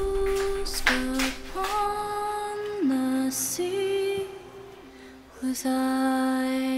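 Soundtrack music: a woman's voice singing a slow wordless melody in long held notes that step up and down.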